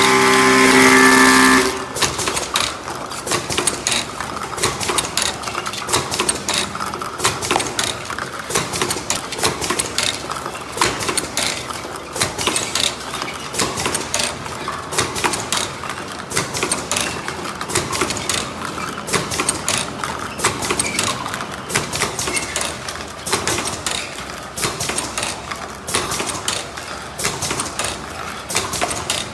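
Steady held tones cut off about two seconds in. Then an automatic rotary capping machine runs with a busy, irregular clatter of clicks and knocks as it indexes the play dough tubs and presses the lids on.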